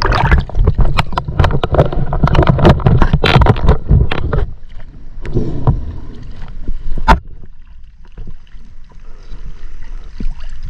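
Sea water splashing and sloshing around a spearfisher's action camera as it comes up from underwater in the shallows, loud and busy with clicks for the first four seconds, then settling to a faint wash with one sharp knock about seven seconds in.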